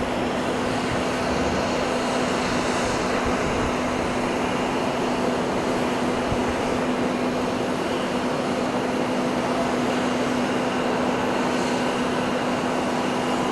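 Steady jet engine noise from an airliner idling before its takeoff roll: an even rushing noise with a constant low hum, no change in level.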